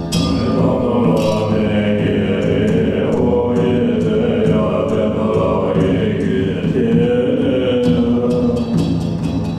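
Background music of chanted mantra, several voices singing over a steady low drone.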